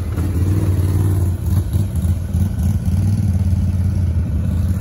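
ATV (four-wheeler) engine running steadily at low speed while riding, heard from the rider's seat, its pitch rising and falling slightly with the throttle.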